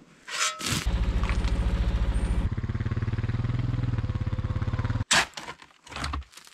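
A four-wheeler's engine runs steadily with a rapid, even pulse for about four seconds as the ATV tows a box trailer. It is framed by shovel strokes: a steel shovel scrapes and tips gravel at the start and again, in several sharp strokes, near the end.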